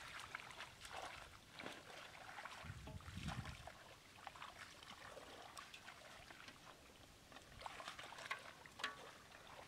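Shallow muddy water splashing and trickling as a person wades and gropes in it by hand, with many small scattered splashes and drips and a low thump about three seconds in.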